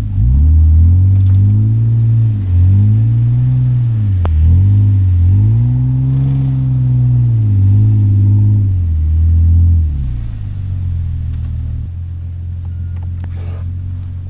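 Truck engine revving up and down repeatedly as it drives through slick snow, about five surges of throttle over ten seconds. It then settles to a steadier, lower running sound near the end.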